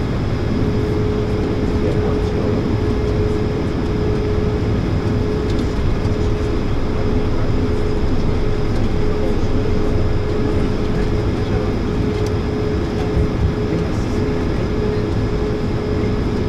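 Cabin noise of an Airbus A220-300 taxiing after landing: its Pratt & Whitney PW1500G geared turbofans and the airframe give a steady low rumble with one steady hum-like tone over it.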